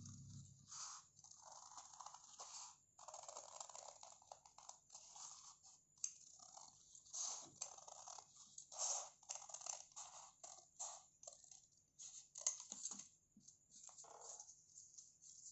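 Large scissors cutting through stiff buckram: a faint run of short, irregular crunchy snips.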